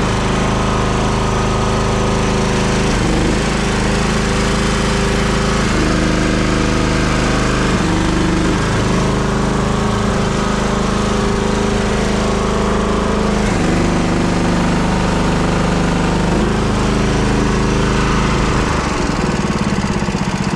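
Power buggy's small engine running steadily under the rider, its note shifting a few times as the buggy is driven.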